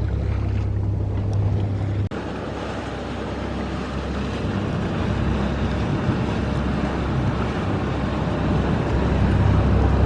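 Wind buffeting the microphone over the rush of water along a sailboat's hull under way, with a heavy low rumble that drops out abruptly about two seconds in and comes back near the end.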